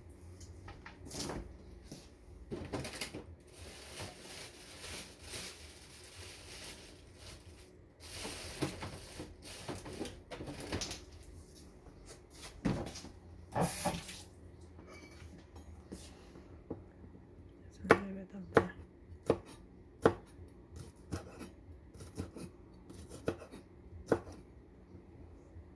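Kitchen handling sounds while spices are added to a marinade: rustling and rubbing, then a series of sharp clicks and knocks from containers and utensils in the second half.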